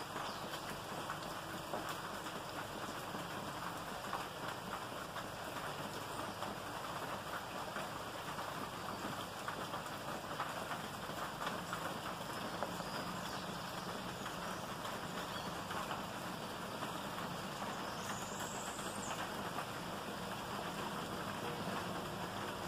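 Steady rain falling on a lawn and trees: an even hiss made of many fine drop patters, holding at one level throughout.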